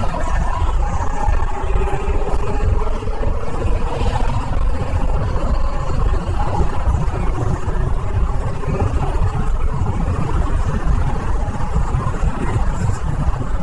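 A fly buzzing continuously, its pitch wavering slowly up and down, over a heavy low rumble.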